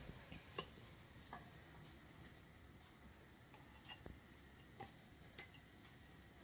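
Near silence with a few faint, irregular clicks and taps: a silicone spatula scraping heavy cream out of a plastic measuring cup.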